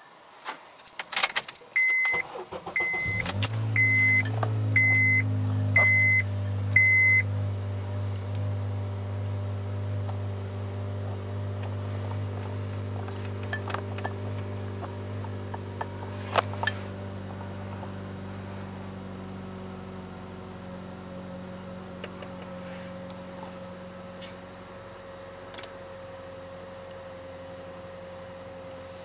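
Car keys jangle while a dashboard chime beeps six times, about once a second; about three seconds in, the 2008 Honda Accord's engine cranks and catches, then idles steadily, slowly getting quieter. A few light clicks come later.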